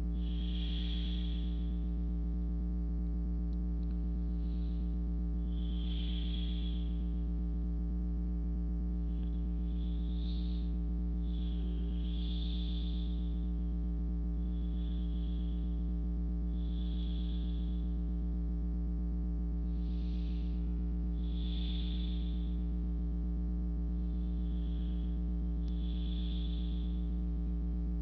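Slow, soft human breathing, one breath about every two seconds, over a steady low hum.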